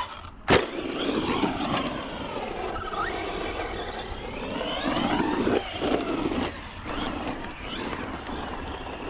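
Arrma Vorteks 4x4 223S BLX RC stadium truck's brushless electric motor whining, rising and falling in pitch as the throttle is worked. About half a second in there is a sharp knock as the truck lands off a jump.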